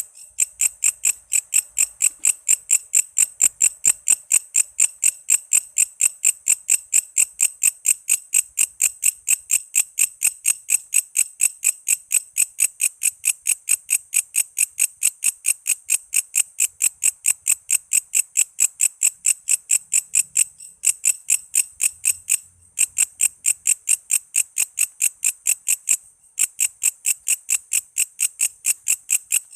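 Walang kece singing: a high-pitched, evenly repeated chirp of about four pulses a second, with two or three brief breaks in the second half.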